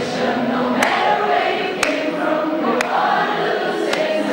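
Many voices singing together, with a sharp beat about once a second.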